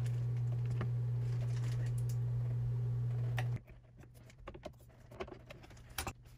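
A steady low hum with faint clicks from hands working wires at a screw-terminal block. The hum cuts off abruptly about three and a half seconds in, leaving only a few faint small clicks and taps.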